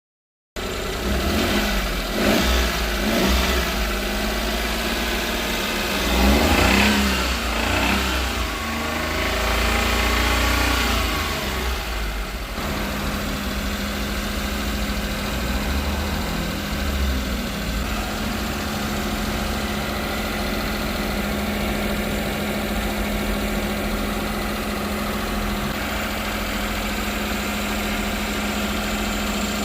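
Daihatsu Hijet kei truck engine running: revved up and down several times in the first dozen seconds, then idling steadily.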